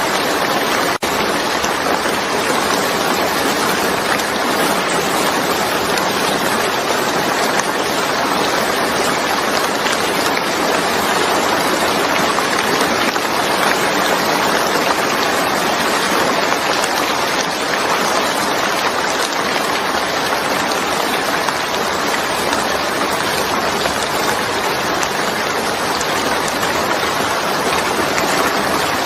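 Steady rain falling, a dense even hiss of water with no pauses, briefly dipping in level about a second in.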